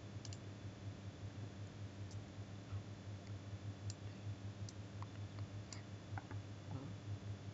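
Computer mouse clicking: several separate sharp clicks spread through a few seconds over a steady low hum.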